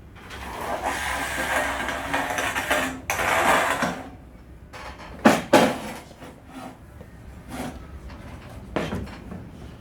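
Aluminum display-frame pieces being handled: a scraping, sliding stretch for about four seconds, then several metal clanks, the loudest two in quick succession about five seconds in and two lighter ones after.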